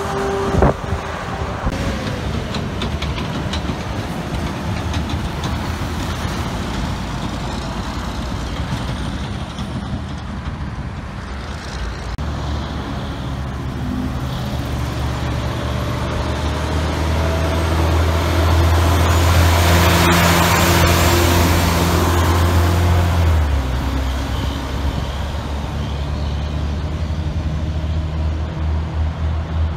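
Heavy trucks and traffic passing on a road, diesel engines running over tyre and road noise. A steady low engine drone builds from about the middle and is loudest about two-thirds of the way through, then eases off.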